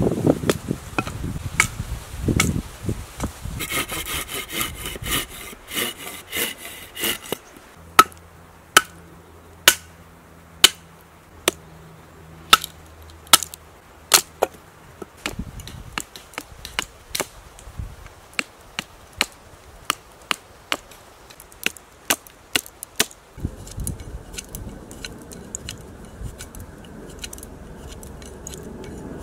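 Fixed-blade bushcraft knife chopping into wood on a stump: a run of sharp single chops, often about two a second, with short pauses between runs.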